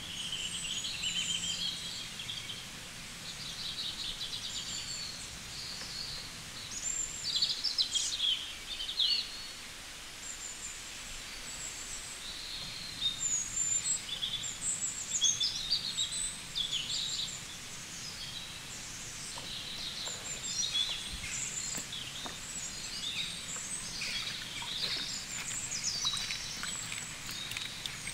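Many birds chirping and singing in short, quick calls and trills, scattered throughout over a steady faint outdoor hiss.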